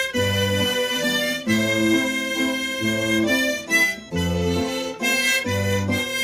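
Harmonica playing a melody over sustained chord and bass accompaniment, with the notes changing every half second to a second.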